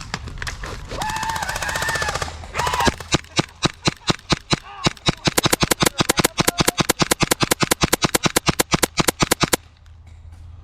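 Airsoft gun firing a rapid string of shots, about seven a second, for some six seconds, then stopping abruptly. A short shout comes just before the firing starts.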